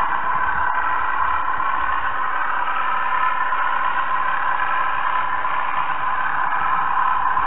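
Narrow-gauge model railway train running along the track, a steady whirr and rolling rattle picked up close by the small onboard camera's tinny microphone.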